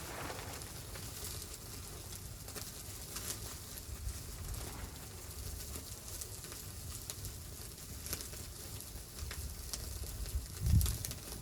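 Irregular crackling and patter over a low rumble, with one heavy low thump near the end.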